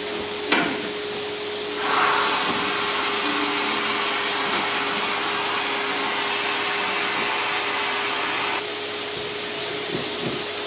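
Suction motor of a screen-printing vacuum table running with a steady rushing hiss. It switches on about two seconds in and cuts off abruptly near the end, and a sharp click comes just before it starts.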